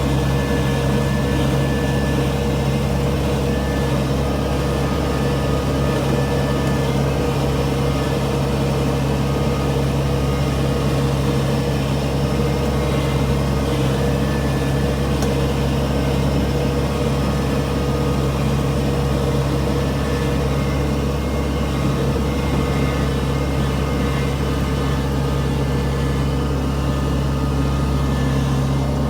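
Combine harvester's diesel engine running steadily with a constant low drone and a few fixed tones, holding an even level throughout.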